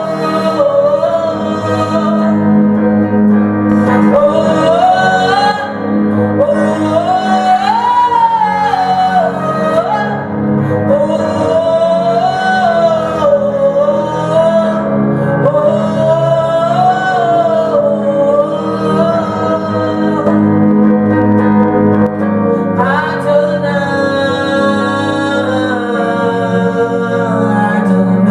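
Gospel worship song: a sustained, wavering sung melody over steady instrumental accompaniment, growing fuller near the end.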